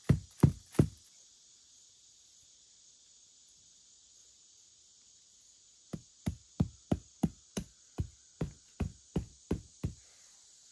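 Evenly spaced heavy thuds, about three a second, in two runs: one ending about a second in and one from about six to ten seconds in. A steady high drone of insects runs underneath.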